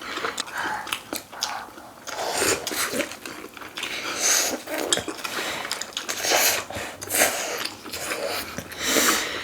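People eating at a table: chewing and biting, with cutlery clicking against dishes in a run of short irregular clicks and bursts.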